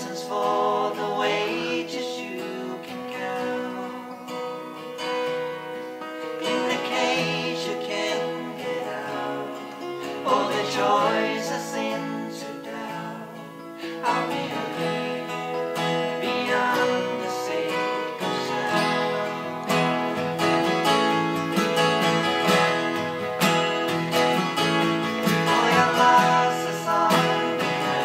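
Two acoustic guitars strummed while two men sing together, live. It gets louder about halfway through.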